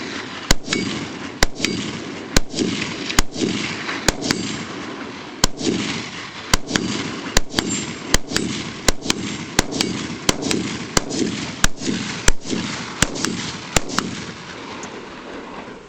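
AR-15 rifle fired semi-automatically in a steady string of about twenty shots, one every half second to a second, each crack followed by rolling echo.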